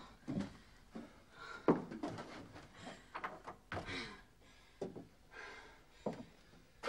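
Wooden hut door and knocks and thuds of someone stepping in across boards, among a woman's short gasping breaths as she cries.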